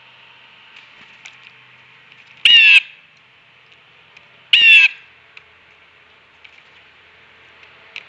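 Blue jay giving two loud, harsh calls about two seconds apart, each short and raspy.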